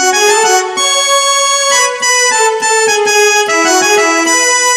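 Electronic keyboard playing a short melody of held notes on its trombone voice, shifted up an octave.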